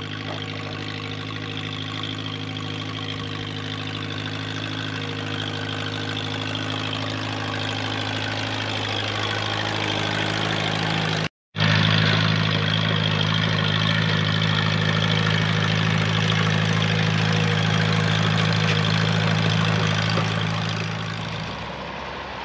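John Deere 2010 tractor engine running steadily at an even pitch while the tractor pulls a hay rake. There is a brief break about eleven seconds in, after which it runs louder, and the sound drops and changes just before the end.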